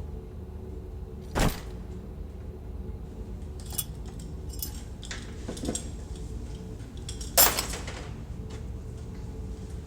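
Scattered metallic clanks and clinks over a low steady hum, two of them sharper and louder, one about a second and a half in and the loudest near the end.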